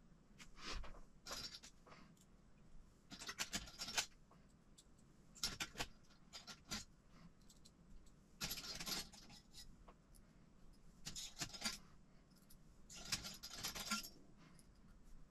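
Hands handling small RC kit parts and hardware bags: intermittent rustling and light clicking in short bursts, with quiet between them.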